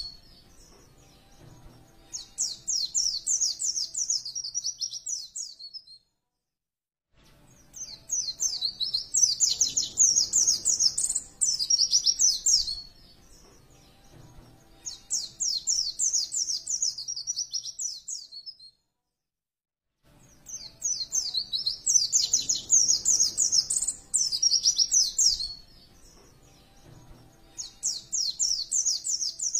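White-eye (pleci) singing in repeated phrases of rapid, high-pitched chattering notes, each phrase a few seconds long with short pauses between. The song breaks off into total silence twice, where the recording is looped.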